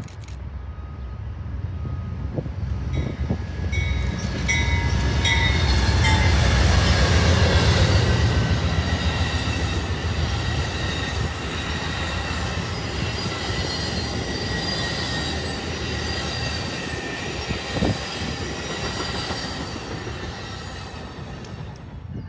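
An Amtrak passenger train with Superliner bi-level cars passing close by. The locomotive's diesel rumble builds to its loudest about seven seconds in. The cars then roll past with a steady, high-pitched squeal from their wheels that slowly fades near the end.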